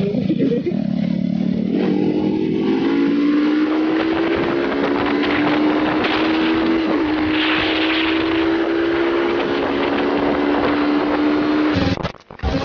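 Yamaha R15 V2.0's single-cylinder engine pulling at speed under steady throttle, its pitch rising slowly as the bike accelerates, with wind rushing past. It cuts off suddenly just before the end.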